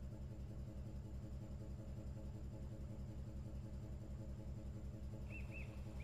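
Steady low throb of a river cruise ship's engine, pulsing about six times a second. A few short high chirps come in near the end.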